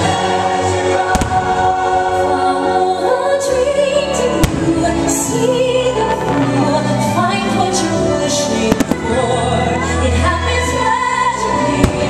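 Orchestral show music with a choir singing, cut by several sharp firework bangs spread through it.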